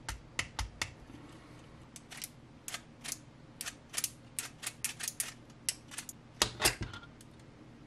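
Fully 3D-printed plastic Predator claw grabber being worked by hand: irregular light plastic clicks and clacks as the scissor-style handles are squeezed and released and the claws open and shut. A few louder clacks come close together toward the end.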